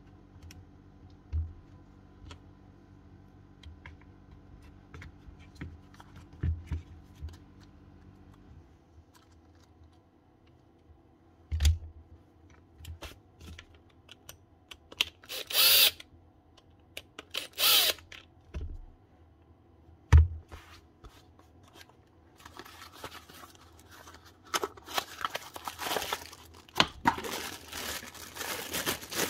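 Compressed air hissing from a blow gun in two short blasts around the middle, among scattered clicks and knocks of drill parts being handled. A low steady hum stops about a third of the way in, and rustling and crinkling follow near the end.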